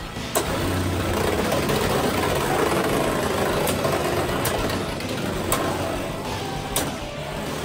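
Two Beyblade X tops, Viper Tail and Knight Lance, spinning in a stadium with a steady whirring grind. Sharp clacks sound as they collide, about five times, the first near the start being the loudest.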